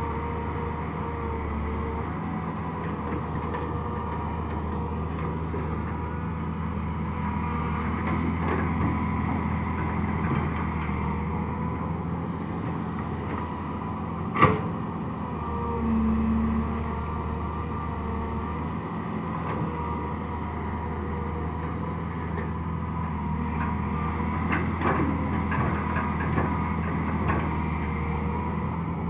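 Crawler excavator's diesel engine running steadily under load while it digs soil and swings to load a dump truck. A single sharp knock about halfway through, and a few light clicks near the end.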